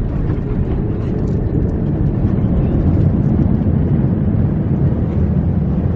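Steady low rumble of an airliner's cabin with the aircraft moving on the ground: engine and rolling noise heard from inside the passenger cabin.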